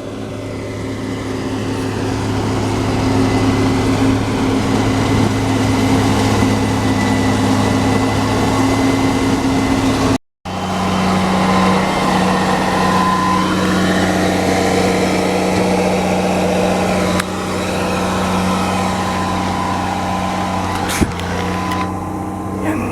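Diesel engines of a Case IH combine harvester and grain-cart tractor running steadily under harvest load. The sound drops out for a moment about ten seconds in and resumes at a slightly different pitch, with slow rises and falls in engine note.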